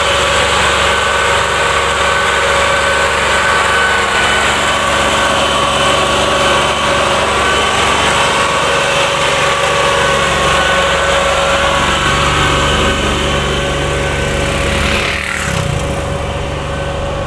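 Massey Ferguson 240 tractor's three-cylinder diesel engine running steadily as it pulls a loaded sugarcane trolley past. Near the end a motorcycle goes by with a brief falling-pitch sweep.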